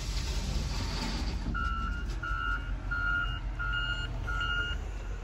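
A John Deere 544K wheel loader's reverse alarm beeps five times, about one beep every three-quarters of a second, as the loader backs away, over a low engine rumble. It is heard from inside a pickup cab.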